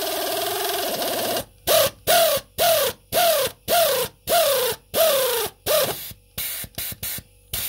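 Draper StormForce 3/8-inch drive stubby air ratchet running, driving a bolt in: a continuous whine that falls in pitch and cuts off about a second and a half in, then a quick series of short trigger bursts, about two a second, each whine dropping in pitch, with the exhaust air hissing. The bursts grow shorter and fainter near the end.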